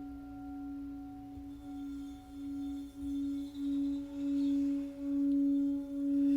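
Singing bowl struck once, then ringing on with a sustained hum and a few higher overtones. From about two seconds in, the tone swells and wobbles roughly once a second, growing louder.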